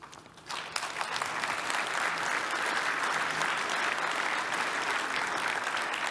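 Audience applauding, starting about half a second in, holding steady, then fading near the end.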